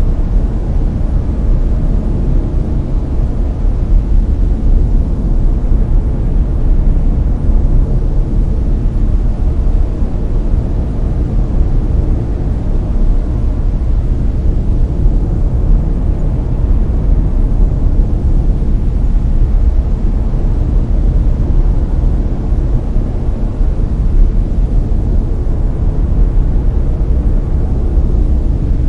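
Layered brown noise: a steady, deep hiss, heaviest in the low end and without any change or event.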